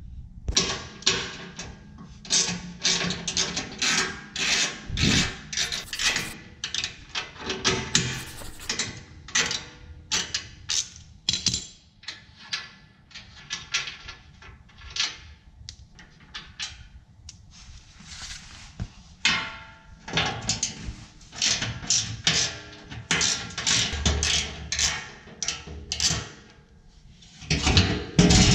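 Socket ratchet clicking in quick runs while loosening the 15 mm skid-plate bolts under the truck, with short pauses between runs.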